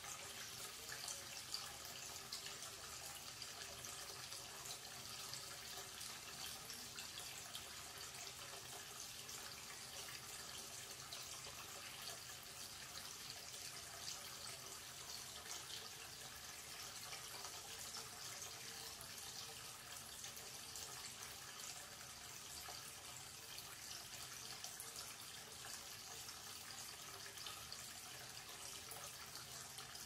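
Tap water running in a steady stream into a ceramic wash basin, splashing into a shallow pool of water in the bowl.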